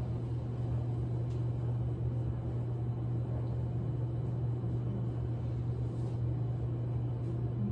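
Steady low hum of room ventilation, with no change through the stretch and a faint click about a second and a half in.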